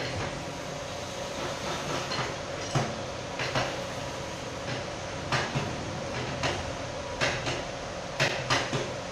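Irregular metal clinks and knocks, about eight, coming closer together near the end, as parts of an electric hoist are handled during repair, over a steady hum.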